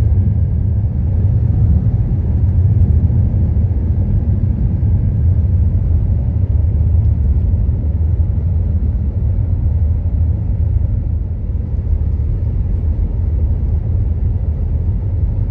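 Steady low road rumble of a car driving along, heard from inside the cabin.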